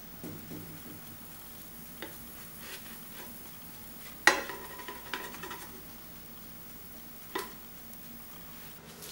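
Spatula knocking and scraping against a nonstick frying pan as small cakes are turned, with a sharp clack about four seconds in and another a few seconds later, over a faint steady sizzle.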